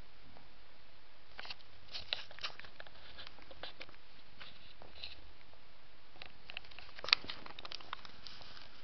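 Cat mouthing a blanket at close range: irregular small wet clicks and smacks, with one sharper click about seven seconds in.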